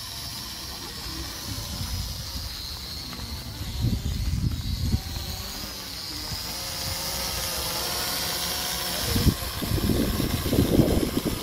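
Small foldable quadcopter camera drone in flight: its propellers give a steady high whine that wavers slightly in pitch. Low, gusty rumbling buffets the microphone, heaviest from about nine seconds in as the drone passes close overhead.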